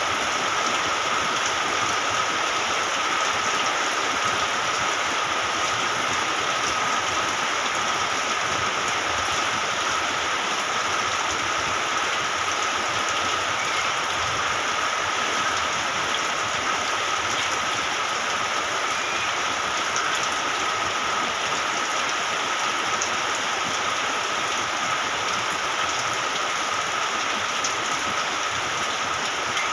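Rain falling steadily, a constant even hiss of drops on surfaces, with a thin steady high tone running through it.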